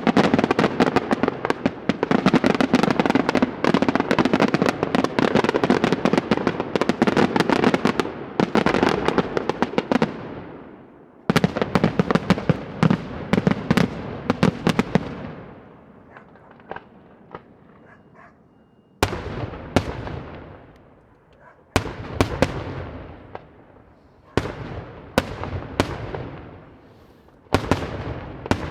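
Daytime fireworks display, with dense rapid volleys of sharp bangs and crackling, a short break about ten seconds in, and another dense volley. Then come a few scattered pops, and from about two-thirds of the way in, separate salvos every few seconds, each opening with a loud bang and trailing off in smaller reports.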